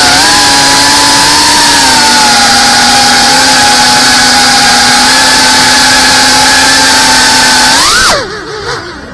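GEPRC Cinelog 35 FPV cinewhoop's brushless motors and ducted propellers whining at a steady throttle, heard from on board the drone. About eight seconds in, the pitch sweeps sharply up and down and the sound drops away.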